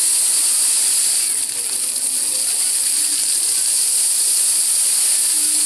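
Water jets of a ground-level dancing fountain spraying up and splashing back onto wet paving: a steady hiss that dips slightly about a second and a half in.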